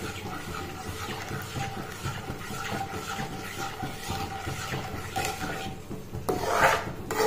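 Metal spatula stirring a thick batter of roasted gram flour and hot ghee in a pan on the stove, scraping against the pan.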